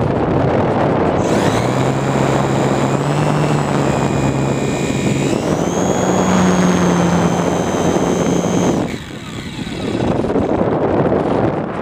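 RC plane's motor and propeller whining over heavy wind rush on the microphone. The motor comes in about a second in, steps up in pitch twice as the throttle opens, then cuts off suddenly near the end, leaving the wind rush.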